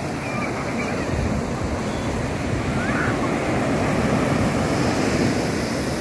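Ocean surf breaking and washing up a sandy beach, a steady rush of water that swells to its loudest about four to five seconds in.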